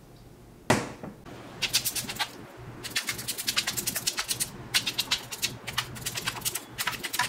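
Rotary bass/treble control potentiometer of a Yamaha RX-495 amplifier turned rapidly back and forth by hand, its detents giving clusters of fast clicks, to work DeoxIT contact cleaner into the crackly control. A single sharp burst comes just under a second in.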